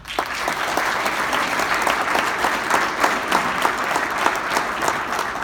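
Audience applauding: many people clapping at once, starting right away and holding steady.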